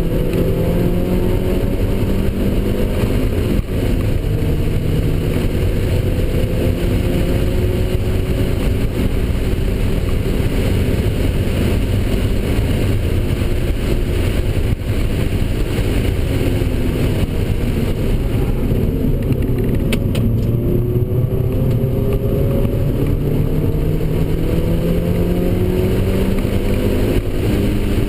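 Mazda NC Miata's four-cylinder engine at speed on a race track, heard from inside the cabin. The engine note climbs slowly over several seconds, eases back in the middle and climbs again near the end, under steady wind and tyre noise.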